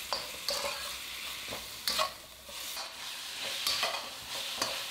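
Chicken and sliced onion sizzling in a hot wok while a metal spatula stirs them, with a steady frying hiss and repeated scrapes and clinks of the spatula against the wok.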